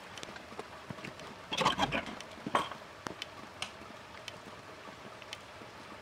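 Old wooden shed door being opened: a short burst of creaking and scraping about a second and a half in, followed by a single knock, over a faint steady background with scattered light ticks.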